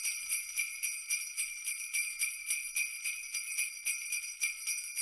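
Sleigh bells jingling in a steady, quick rhythm, about five shakes a second.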